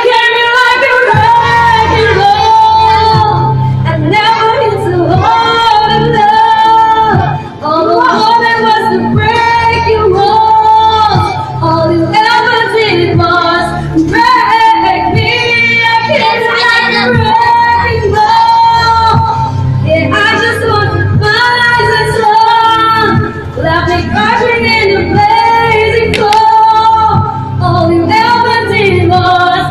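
Loud pop music with a woman singing a melody over a steady bass backing. It starts suddenly.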